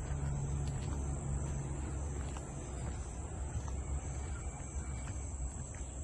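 Steady, high-pitched insect chorus, like crickets, over a low rumble.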